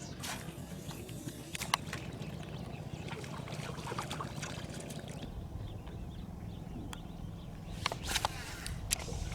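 Steady low rumble of water and wind around a small fishing boat, with scattered sharp clicks and taps.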